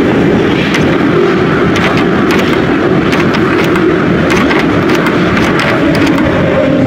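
Soviet 81-707/708 metro train running, heard from the driver's cab: a loud, steady rumble of wheels and running gear with sharp clicks and knocks at irregular intervals.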